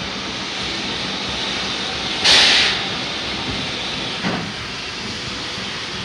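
French steam locomotive hissing steadily, with a loud half-second burst of escaping steam about two seconds in and a short knock about four seconds in.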